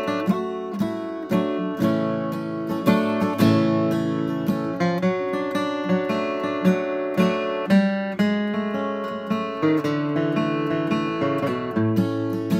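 Steel-string acoustic guitar flatpicked: a quick, rhythmic run of single notes mixed with strums.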